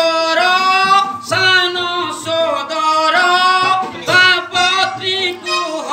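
A man singing a verse in long, held notes with a wavering pitch, phrase after phrase with short breaks: the sung dialogue of a village Ramayana play.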